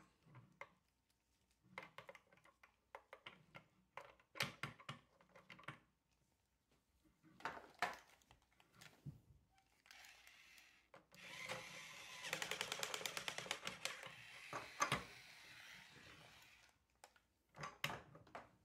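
Plastic parts of a take-apart toy plane being handled and fitted together: scattered clicks and knocks, then about five seconds of rapid, even clicking with a sharp knock near the end of it.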